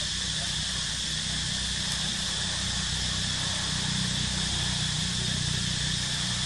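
Steady outdoor ambience: a continuous high-pitched insect drone over a low, steady hum like a distant motor.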